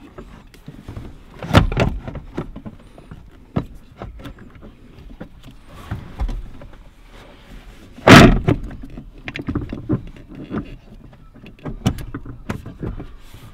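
Knocks and clunks from a brake booster and master cylinder being pushed against the firewall and worked to line its studs up with the holes. Two heavier thumps stand out, one near the start and the loudest about eight seconds in, with lighter knocks and rattles between.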